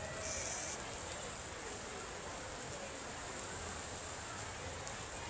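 Open-air crowd ambience: faint, indistinct voices under a steady high hiss, with a brief burst of hiss just under a second in.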